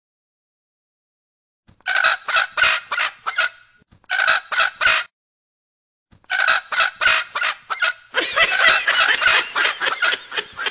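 Chicken clucking and squawking in short bursts, starting about two seconds in and running into a continuous flurry of squawks for the last few seconds.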